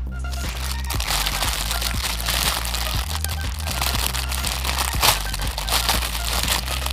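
Plastic packaging crinkling and crackling as it is handled, over background music with a steady bass line.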